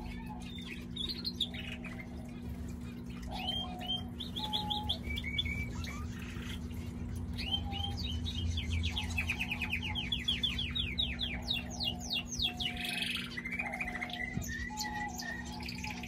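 Canary singing: chirps and quick trills, with a long run of fast repeated sweeps in the middle. Under it another bird gives a short low call about once a second, over a steady low hum.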